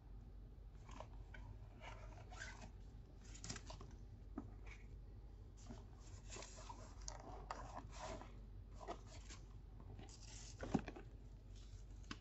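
Faint, irregular rustling and crinkling as hands rummage through the packing material inside a new leather handbag's zipped compartment. There is one sharp click near the end.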